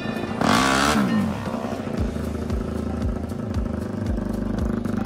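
KTM racing motorcycle's engine in the pit lane: a brief rev about half a second in, then running steadily.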